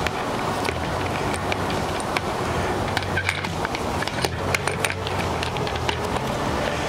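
Copper grounding wire being threaded through a hole in a black plastic cover: scattered small clicks and scrapes of wire and plastic being handled, over a steady background hum.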